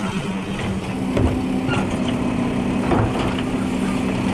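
Automated side-loader garbage truck's engine and hydraulics running steadily while the lifting arm lowers and releases an emptied wheeled cart. A second steady hum joins about a second in, and there are sharp knocks about a second in and around three seconds in as the cart bumps on its way down.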